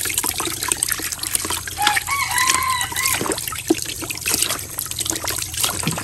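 Water pouring from a hose into a basin and splashing as whole snakehead fish are rubbed and rinsed by hand. A rooster crows once, about two seconds in, lasting a little over a second.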